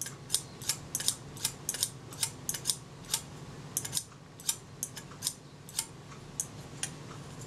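Shutter mechanism of an APM box camera clicking over and over as its lever is worked by hand, a few sharp metal clicks a second. The shutter is being tested after a dust-off: it is sluggish and its spring is probably a little weak.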